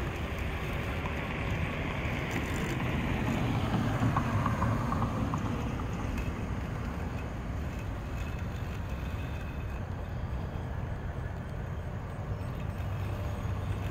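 Yoleny robotic lawn mower running, its blade and wheel motors working through overgrown grass, growing fainter as it drives away, over a steady low rumble.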